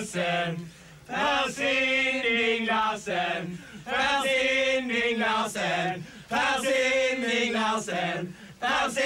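A group of men's voices chanting a sung phrase together, three times with short breaks between.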